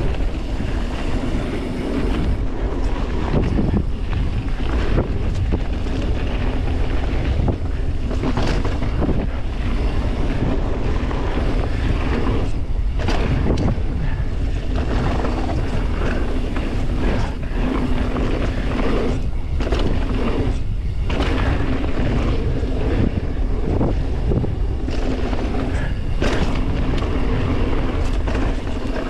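Wind noise on the microphone and mountain bike tyres rolling over a dirt and gravel trail during a fast descent, with short knocks and rattles as the bike goes over bumps.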